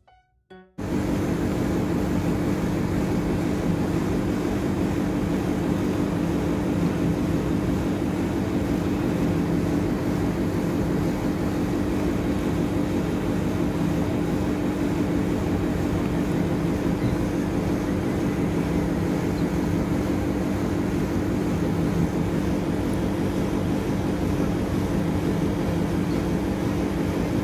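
Steady mechanical hum: an even noisy drone with a constant low tone in it, starting abruptly about a second in and holding level throughout.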